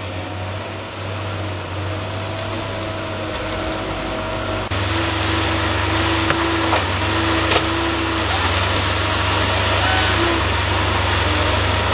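TimberPro TB 620 wheeled feller buncher with a bar saw head, running steadily while it works. It gets louder about five seconds in.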